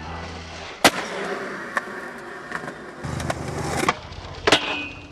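Skateboard rolling, with a string of sharp clacks of the board popping and landing, about one a second; the loudest comes about a second in.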